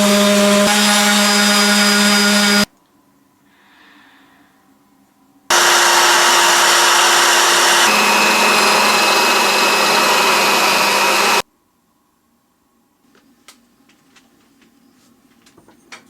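An electric power tool running on wood in two spells: about two and a half seconds, then a pause of about three seconds, then about six seconds with its tone shifting partway through. Faint clicks and taps follow near the end.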